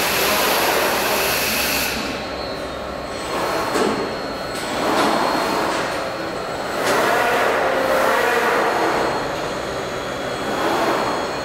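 Linear transfer machine running its cycle, its overhead gantry loaders moving: a whirring, hissing machine noise that swells and fades every couple of seconds. A high hiss cuts off about two seconds in, leaving a faint steady high whine.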